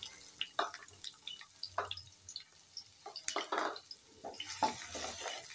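Chopped onions sizzling in hot cooking oil in a frying pan, with scattered crackles and pops over a faint hiss, and one sharp click about three seconds in.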